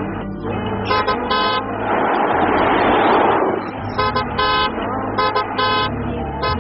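Car horn honking in short double blasts, three pairs in all. Between the first two pairs a loud rushing noise swells for about two seconds and dies away.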